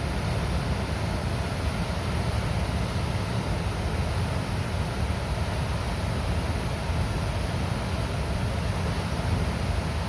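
Water pouring out through a river dam's gates: a steady, deep rushing with no breaks.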